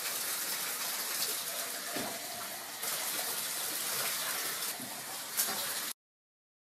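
Water running and splashing in a bathtub while a raccoon is washed: a steady watery hiss that cuts off suddenly near the end.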